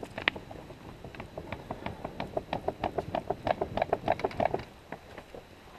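Hand-held bellows-style air pump worked in quick strokes, about six a second, puffing air onto campfire coals to heat them up. Each stroke gives a short puff with a faint squeak, and the pumping stops a little before the end.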